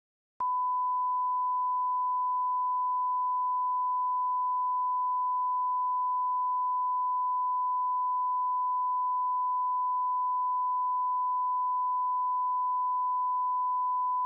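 A single steady electronic alert tone at one pitch, near 1 kHz, sounding without a break, starting just under half a second in: the long attention tone of a mock Emergency Alert System broadcast.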